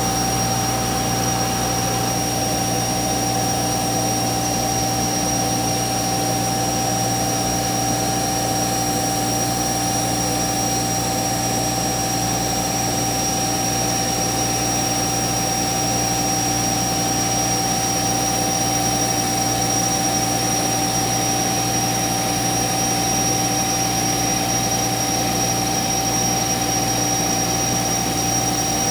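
CNC router running with a steady, unchanging machine whine of several fixed pitches over a low hum.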